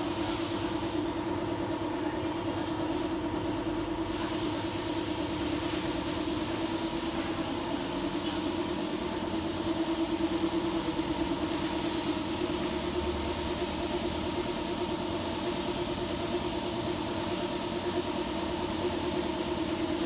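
Steady machine hum with a high hiss of air over it. The hiss cuts out for about three seconds, a second in, then returns.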